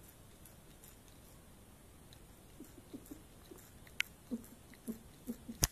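A cat licking loudly, with small wet smacks and clicks. They start about two and a half seconds in and come irregularly a few times a second. A single sharp click near the end is the loudest sound.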